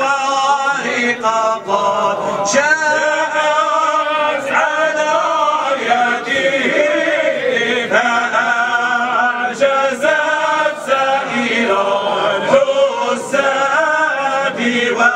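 A large group of men chanting Sufi devotional verses together in unison, continuously.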